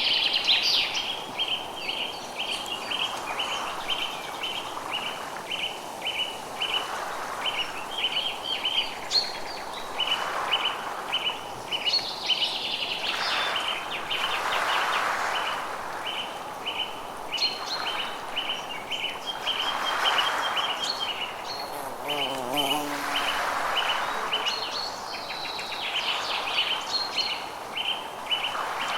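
Forest ambience: birds chirping and calling over a steady pulsing chirp that repeats a couple of times a second, with a soft hiss that swells and fades every few seconds.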